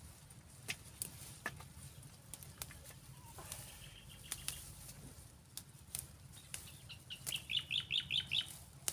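Chili pepper bushes rustling and stems snapping sharply as peppers are picked by hand. Near the end comes a quick run of about six high chirping calls from a bird.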